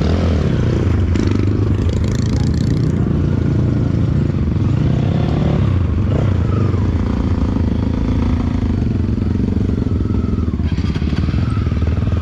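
Off-road trail motorcycle engine running steadily, with clattering from the bike over rough ground.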